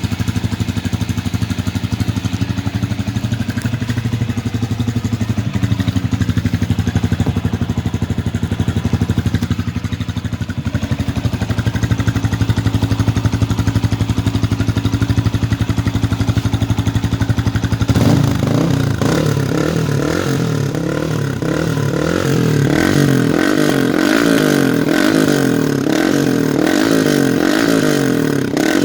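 Yamaha R15 v2's 150 cc single-cylinder engine running through an Akrapovic full-system exhaust, idling steadily at first. About two-thirds of the way in, it is revved up and down in quick, even blips.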